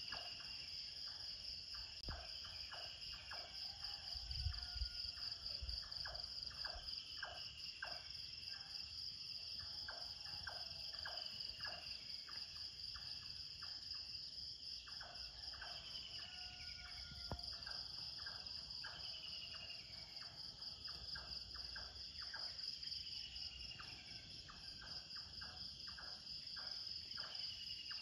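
Morning outdoor ambience: a steady, pulsing insect trill, like crickets, runs throughout, with birds chirping and whistling over it in short repeated calls.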